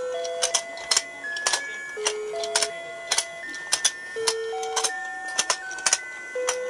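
Battery-powered rotating fishing game toy playing a simple electronic tune, one plain note at a time, with a new note about every half second. Its turning mechanism gives sharp clicks, often in pairs, as the fish mouths open and close.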